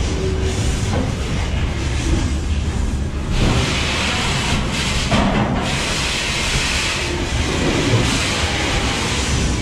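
Freight wagons rolling directly over the microphone between the rails: a steady, loud rumble of steel wheels on rail with hissing, and clattering knocks as the wagons' bogies pass overhead.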